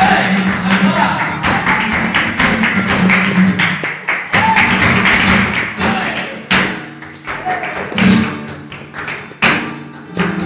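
Live flamenco: an acoustic flamenco guitar playing with palmas, rhythmic hand-clapping, and a voice singing now and then.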